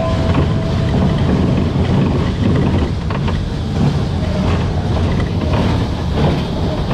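Powered junior coaster train running along its track, its wheels and cars rumbling and rattling steadily. There are a few sharp clacks about three seconds in and again near the end.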